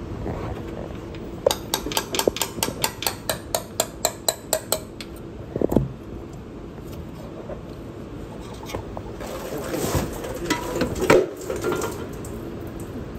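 Hand tools working under a car to take off the oil pan: a run of even metal clicks, about four a second for some three seconds, then scattered metal clinks and a clank as the pan comes away.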